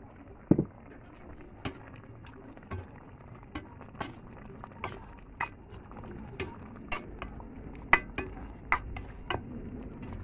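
A metal spoon clinking and scraping against an aluminium pan while stirring beef and onions in sauce, a sharp clink about once or twice a second. A heavier knock about half a second in.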